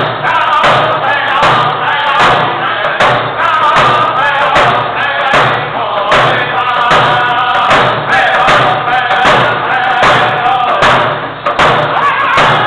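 Group of men singing a powwow hand-drum song together, beating frame hand drums with beaters on a steady, even beat.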